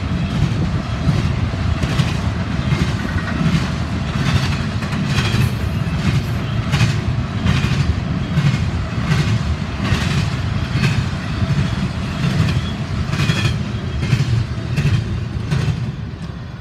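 Norfolk Southern double-stack intermodal train rolling past: a steady low rumble of the container well cars with sharp wheel clicks about once or twice a second, easing off slightly near the end.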